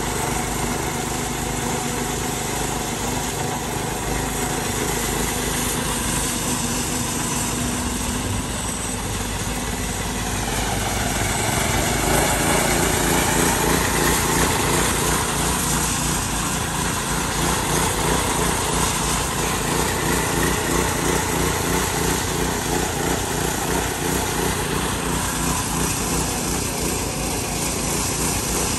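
Walk-behind power trowel's small gasoline engine running steadily while its rotating blades float fresh concrete. It gets somewhat louder about twelve seconds in.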